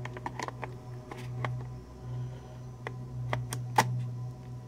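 Plastic NP-F-type camera battery being pressed and slid into a camera monitor's battery plate. A run of small clicks and scrapes ends in a sharp click near the end as it seats.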